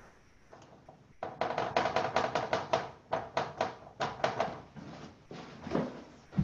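Pencil scratching on paper in rapid back-and-forth shading strokes, several a second, starting about a second in, with short pauses and thinning out near the end.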